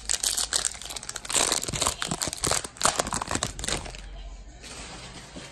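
A baseball card pack wrapper crinkling and tearing as it is ripped open and handled. It makes a dense run of crackles, loudest in the middle, that eases to a soft rustle after about four seconds.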